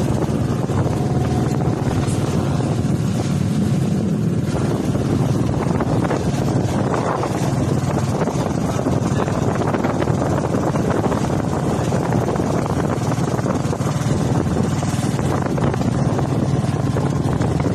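Engine of a motorized outrigger boat (bangka) running steadily under way, with water splashing along the hull and outrigger.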